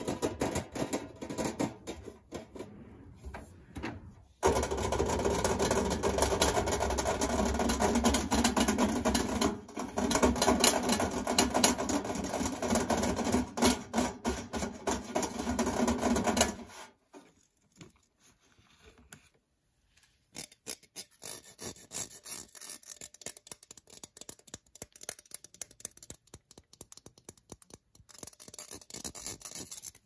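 Close-miked fingertip tapping and scratching on electronics: plastic game controllers, then a microphone. A dense, loud stretch of scratching and handling runs through the middle and stops suddenly. Fainter scattered taps follow over the last dozen seconds.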